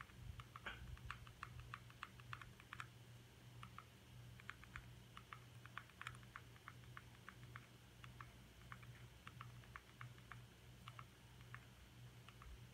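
Faint, quick clicks in runs of several at a time, the buttons of a remote control pressed over and over to step across an on-screen keyboard key by key, over a low steady hum.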